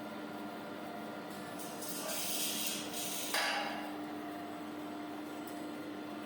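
Automatic maxi roll band saw cutting machine running with a steady hum, and a loud hiss lasting about two seconds midway that ends in a sudden sharper burst.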